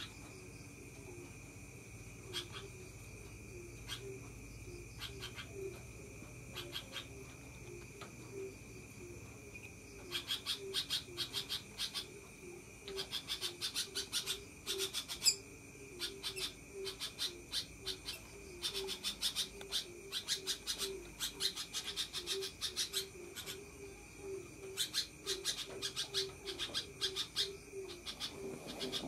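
Sooty-headed bulbul (kutilang) chattering in long runs of very rapid, sharp notes, sparse at first and then in dense runs with short pauses from about a third of the way in.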